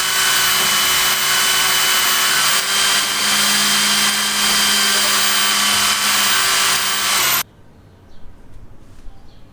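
A power tool running loud and steady with a constant whine, cut off suddenly about seven seconds in; faint scattered ticks follow.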